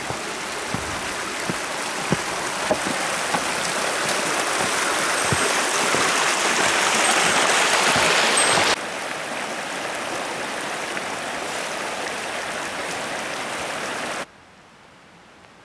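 Shallow mountain stream rushing over rocks, growing louder over the first eight seconds, with regular knocks of footsteps on a wooden plank bridge. It then cuts to a softer, steady rush of water, and near the end drops abruptly to a faint background.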